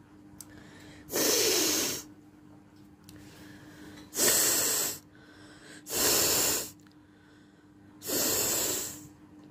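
A person blowing their nose hard four times, each blow a rush of air lasting under a second, spaced about two seconds apart.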